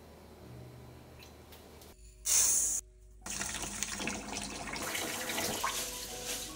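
Tap water running into a stainless steel bowl of rice in a sink to rinse it. It starts about two seconds in with a brief loud gush, breaks off, then runs on steadily, with hands swishing the rice in the water near the end.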